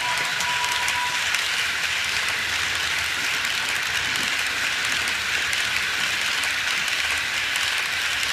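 Model freight train of container wagons rolling past close by on model railway track: a steady rushing rattle of wheels with many quick clicks.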